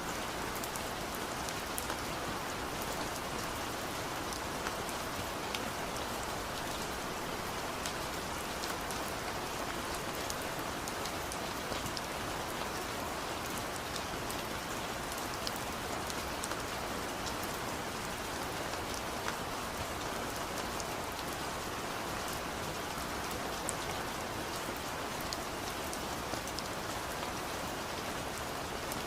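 Steady rain falling, an even hiss with many small drops pattering and ticking on a surface.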